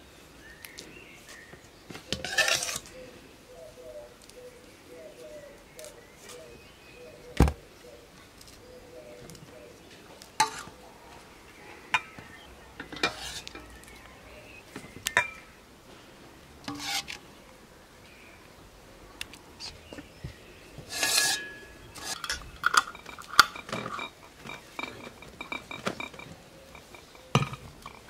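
A metal ladle clinking and scraping in an enamel basin and against glass jars as red liquid is ladled into the jars, with a few short pours and scattered knocks, one sharp knock about a third of the way through. Near the end, a jar's screw lid being closed.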